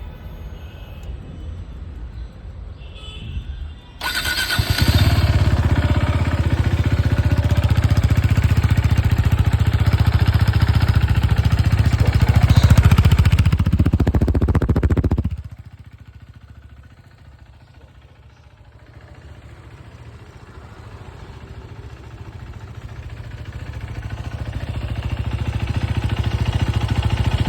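KTM RC 390 single-cylinder engine cold-starting through its stock exhaust. It fires about four seconds in and runs loudly for about eleven seconds. Then the sound drops sharply, and a quieter engine rumble builds again toward the end.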